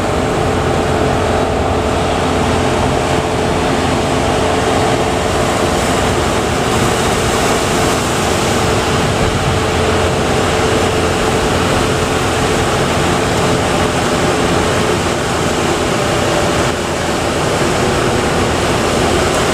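Big surf breaking at a river-mouth harbour channel, a steady rush of water, with a boat motor droning underneath that fades away about fifteen seconds in.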